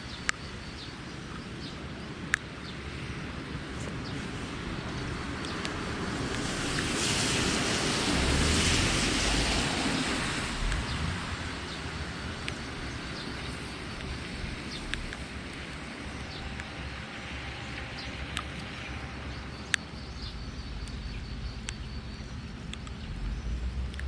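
Sea waves washing against the shore with wind buffeting the microphone; one wave swells louder a few seconds in and dies away. A few sharp clicks stand out here and there.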